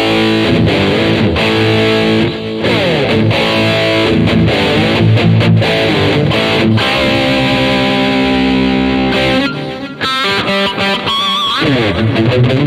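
Distorted electric guitar through a Peavey Bandit 112 Blue Stripe solid-state amp, its speaker cabinet simulated by a Peavey Scorpion 12-inch impulse response: a riff of held notes with several sliding notes, dropping back briefly about ten seconds in.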